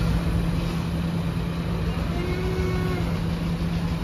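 Heavy truck's diesel engine running steadily as a low-loader moves off slowly, a constant low hum. A faint short tone sounds about two seconds in.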